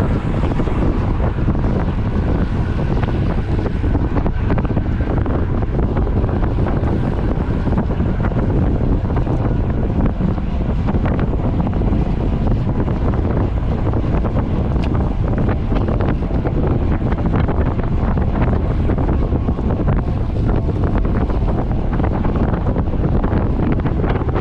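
Wind buffeting a camera microphone in a steady, loud rush heaviest in the low end, the sound of riding a bicycle at speed.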